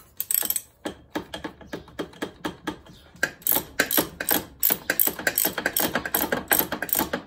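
Hand socket ratchet on an extension clicking as it is swung back and forth, loosening a nut that holds an accessory bracket to the engine block. The clicks come in short spaced runs at first and grow quicker and denser after about three seconds.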